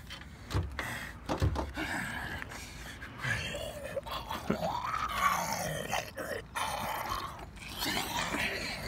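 A man groaning and grunting with strain in drawn-out, wavering sounds, with two short low thumps in the first two seconds.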